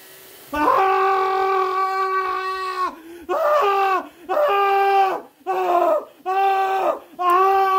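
A person's voice wailing: one long cry held on a steady pitch for about two seconds, then five shorter cries in quick succession, each dropping in pitch as it ends.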